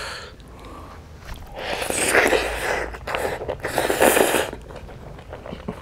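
Two long, wet slurps, each about a second, as cooked snail meat is sucked out of its shell.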